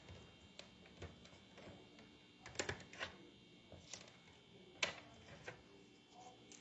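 Paper being handled: a scattered series of faint clicks and light taps as an envelope is worked open.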